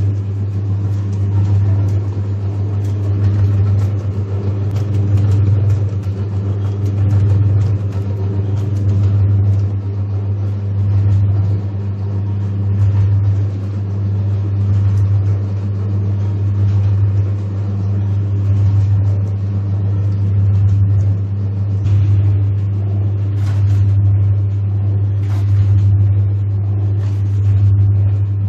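Dough kneading machine running: a steady low motor hum that swells and eases about every two seconds as its arms turn and stretch a wet bread dough, with a few faint knocks now and then.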